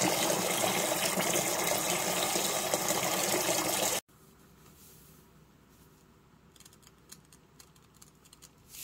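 Tap water gushing into a stainless steel pot, cutting off abruptly about four seconds in. After that it is much quieter, with faint scattered ticks of salt grains pouring from a canister into the metal pot.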